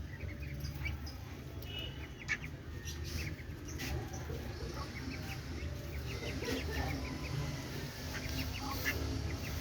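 Ducklings (duck–Muscovy crosses) peeping while they feed: many short, high calls scattered irregularly, over a steady low rumble.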